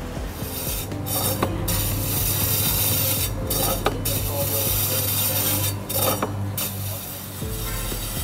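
Electric rotary meat slicer running with a steady motor hum, its spinning blade shaving slices of pork with a rasping cut as the carriage is pushed back and forth.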